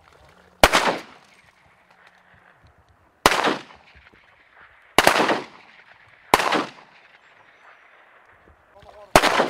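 Five shotgun blasts, spaced unevenly about one to three seconds apart, each followed by a short echo.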